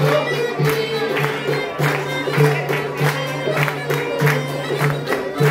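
Tsabouna, the Cycladic goatskin bagpipe, playing a traditional island tune, with a laouto strumming a steady beat underneath.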